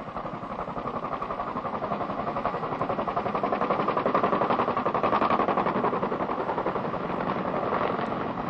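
Boeing CH-47 Chinook helicopters' tandem rotors beating rapidly as they approach and come in low to land. The blade thump grows louder toward the middle and eases slightly near the end.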